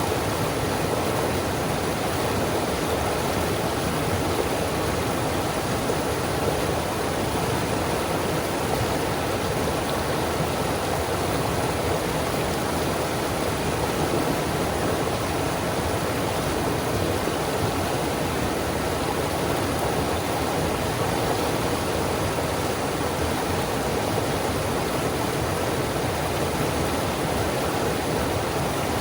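Rushing water of river rapids, a steady, unbroken roar.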